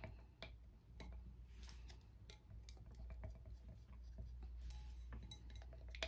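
Wooden craft stick stirring thick glycerin in a small glass, tapping and scraping against the glass in faint, irregular clicks.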